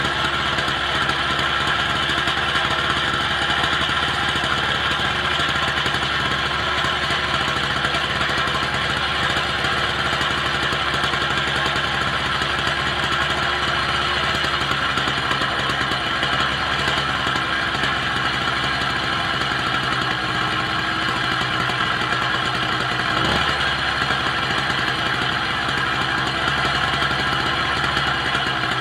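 Small two-stroke motorised-bicycle kit engine (66cc, sold as 80cc) running steadily, apparently at a fast idle.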